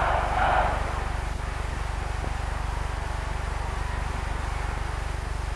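Steady low hum and hiss from an old optical film soundtrack, with a brief rush of noise at the start.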